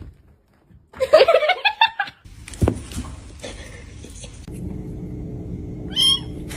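A kitten meowing, one short high call near the end, over a steady low hum. About a second in comes a brief choppy burst of a person's voice.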